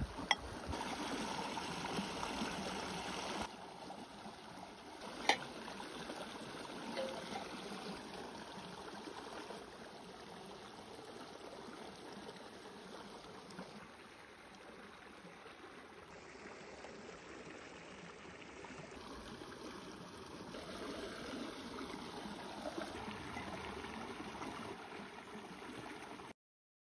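Shallow stream running and trickling over rocks, with a couple of sharp clicks near the start and about five seconds in. The water sound stops abruptly near the end.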